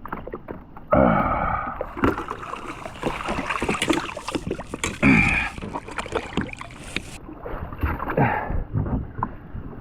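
Jet ski engine running, its pitch rising and falling as the throttle changes. A rushing hiss sits over it through the middle few seconds.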